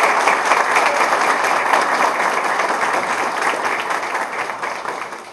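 Audience applauding: dense, even clapping that slowly fades away near the end.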